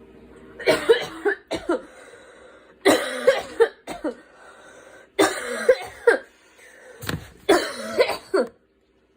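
A girl coughing in four fits, each of two or three coughs, roughly every two seconds.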